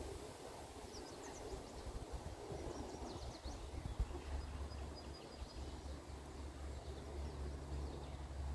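Outdoor ambience: short high bird chirps in a couple of quick clusters and a brief whistle, over a steady low rumble, with a single sharp knock about halfway through.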